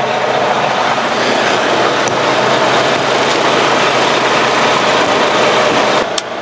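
Volvo D13 diesel semi-truck engine idling steadily as it warms up after sitting for several days, with a steady broad hiss over it. The level dips slightly about six seconds in, with a short click near the end.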